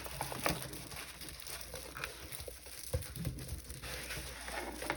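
Diamond painting canvas being handled and pressed flat: faint rustling with scattered light taps and clicks.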